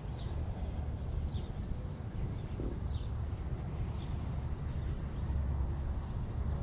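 Outdoor ambience: a steady low rumble with a few faint, short, falling bird chirps scattered through it.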